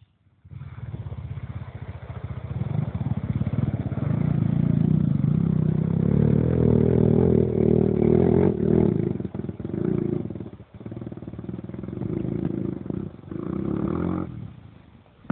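ATV (quad bike) engine revving hard as it ploughs through deep water, the note rising and falling with the throttle. It starts about half a second in and drops away sharply near the end.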